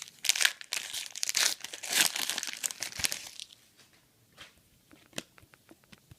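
Trading-card pack wrapper being torn open and crinkled for about three and a half seconds, then a few faint clicks as the cards are handled.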